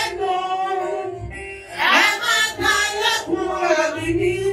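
A woman singing into a handheld microphone, holding long notes, with a short break a little after a second in.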